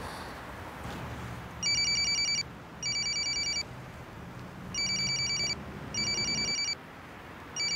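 Mobile phone ringing with a trilling telephone-style ring, short rings coming in pairs, two and a half pairs in all.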